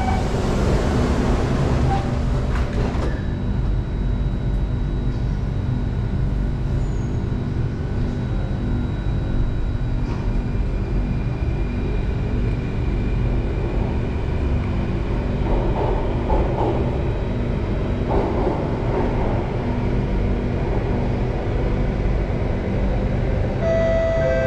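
Singapore MRT Circle Line train heard from inside the car: a hissing noise in the first three seconds that stops sharply as the doors close. Then the train pulls away and runs on with a steady rumble and a hum of several steady motor tones. A few steady tones begin near the end.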